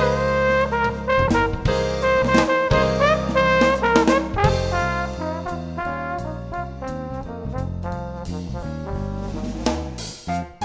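Background jazz music with brass horns over a drum kit beat.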